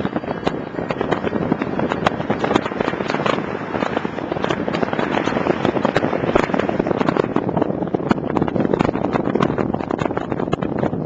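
Wind and road noise from a moving car picked up by a small camcorder's built-in microphone: a steady rushing with dense crackling clicks throughout.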